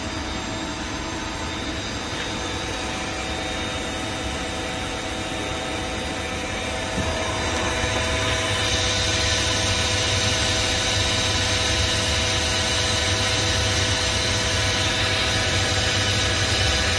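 Takamaz X-15 CNC lathe running with its spindle turning, a steady machine hum with a few held whining tones. About seven seconds in it gets louder, and from about nine seconds a hissing cutting noise joins as the turning insert cuts the spinning metal workpiece.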